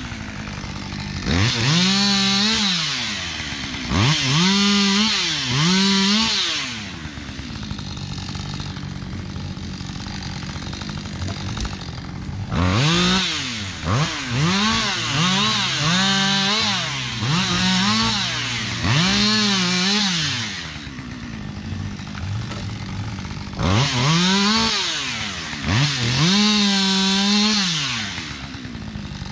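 Petrol chainsaw revving up in repeated short bursts and dropping back to a steady idle between them, as when cutting branches off a felled tree; there are two longer stretches of idling, one about a quarter of the way in and one about three-quarters of the way through.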